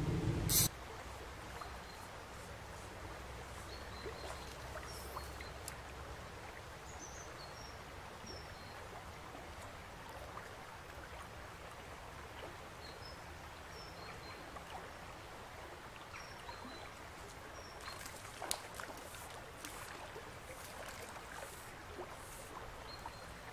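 Shallow river running over stones with a steady babble, and birds giving short high chirps now and then. A brief loud low rumble cuts off abruptly under a second in, and a few sharp clicks come about three-quarters of the way through.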